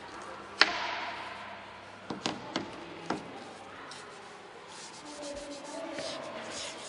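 A sharp knock a little over half a second in, then a handful of quieter taps and clicks.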